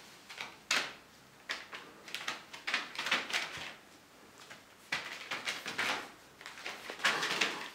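Plastic sheeting crinkling and rustling in irregular bursts as a kitten pounces and scampers across it, the loudest rustles about a second in and again from about five seconds on.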